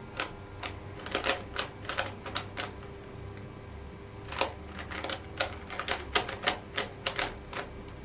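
Plastic 3x3 Rubik's cube, 57 mm, being turned fast by hand during a speed solve: quick runs of sharp clicks as the layers snap through their turns, with a pause of about a second and a half near the middle.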